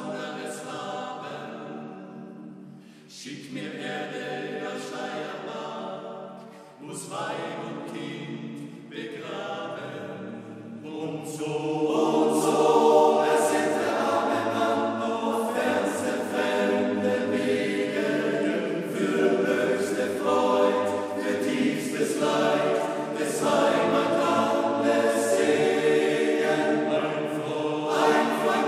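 Male voice choir singing a cappella in parts, soft at first with short breaks between phrases, then swelling much louder about eleven seconds in.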